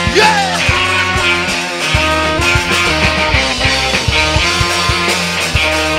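Live rock band recording playing with guitar and drums to a steady beat, with a shouted "Yeah!" right at the start.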